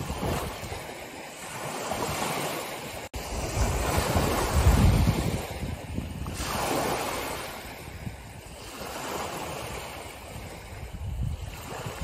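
Small sea waves breaking and washing up the shore, the surf swelling and fading every two to three seconds. The loudest, deepest surge comes about five seconds in.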